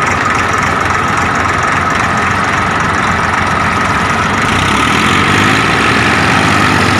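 Diesel engines of two Massey Ferguson 1035 DI tractors running hard, pulling against each other on a chain in a tug-of-war. The engine sound grows louder about four and a half seconds in.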